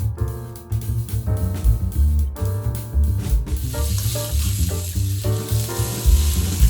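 Stir-fry sizzling in a hot pan, coming in about halfway through, under background music.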